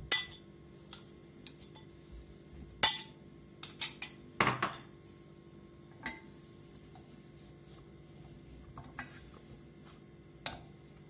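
A metal spoon clinking and knocking against a glass bowl and the rim of a metal pot as chorizo pieces are scraped into the pot: a scatter of sharp clinks, bunched together about three to five seconds in, with one more knock near the end. A faint steady hum runs underneath.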